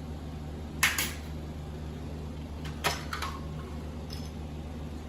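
Small clicks and knocks from the plastic and metal parts of a VCR mechanism being handled: a quick double click about a second in, then a few more around three seconds in, over a steady low hum.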